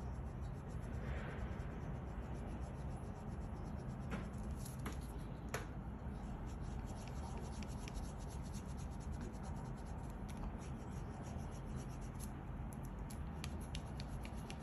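Pencil scratching on origami paper in many quick, short strokes as a tiger's eyes are drawn and shaded in, with a few sharper ticks of the pencil about four to six seconds in.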